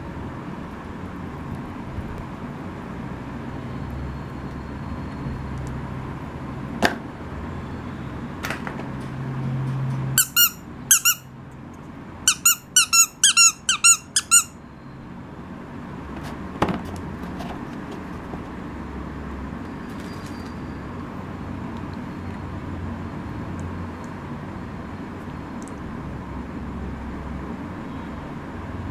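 Yellow rubber duck squeak toy squeezed repeatedly, giving about ten short squeaks: a couple, then a quick run of them. A couple of sharp clicks from toys being handled sound before and after, over a steady low hum.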